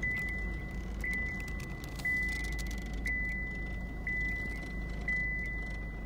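A car's electronic warning chime, one high tone sounding about once a second, over the low rumble of the stopped car's engine idling.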